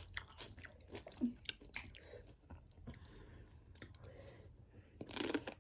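Person chewing a mouthful of cream-cheese-stuffed jalapeño coated in crushed Takis chips, with faint, irregular crunches.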